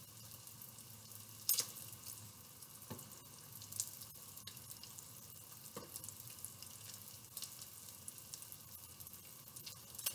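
Bacon sizzling in a frying pan: a steady faint crackle of small pops, with a few sharper clicks, the loudest about a second and a half in.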